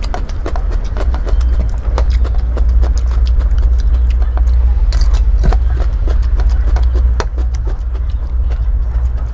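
Crunching and chewing of raw bitter melon close to the microphone: an irregular run of crisp crunches over a steady low rumble.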